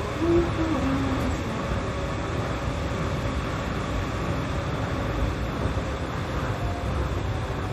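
Running noise inside a Yui Rail monorail car in motion: a steady rumble of the rubber tyres on the guideway beam under a steady hum. A short low tone slides down about a second in.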